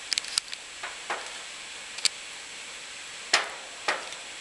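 A few light, scattered clicks and taps, a small cluster at the start and single ones spread across the rest, over a faint steady hiss.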